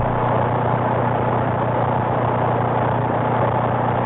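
CB radio speaker on AM channel 19 with a station keyed up but not talking: a steady hiss with a low, even hum under it.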